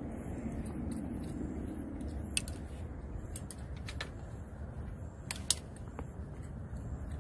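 Steady low outdoor rumble, with a few short sharp clicks or chirps scattered through it, the loudest a close pair about five and a half seconds in.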